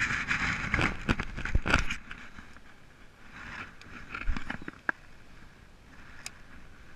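Boat hull knocking and scraping over submerged brush in shallow water, with water splashing at the bow, for about the first two seconds. Then it goes quieter, with a few light clicks as a baitcasting rod is cast and the reel engaged.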